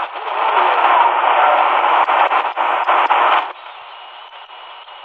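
XHDATA D-219 shortwave radio's speaker playing a noisy AM shortwave signal, thin and cut off in the treble, heavy with static for about three and a half seconds. It then drops to quieter hiss with a faint steady whistle.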